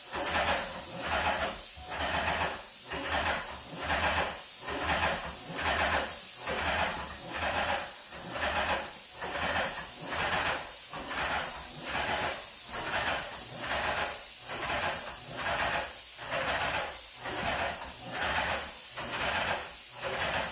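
Airless paint sprayer on an extension pole spraying a ceiling: a steady high hiss of the spray, with a rhythmic surge about once a second.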